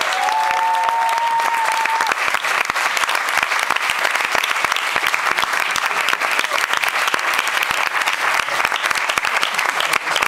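Comedy-club audience applauding steadily, a dense mass of clapping. In the first two seconds a single held high tone sounds over it.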